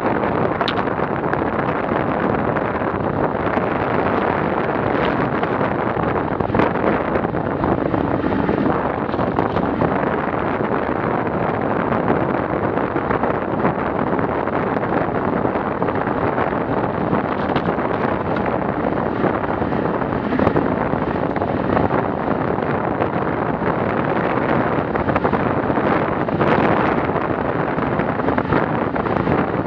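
Steady wind noise buffeting the microphone of a handlebar-mounted action camera on a bicycle moving at about 40 to 55 km/h.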